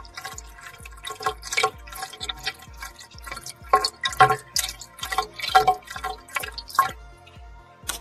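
Water dripping and splashing irregularly in a reef aquarium's overflow drain pipe, with a Blue Marine overflow silencer fitted. Faint background music with a regular low beat runs underneath.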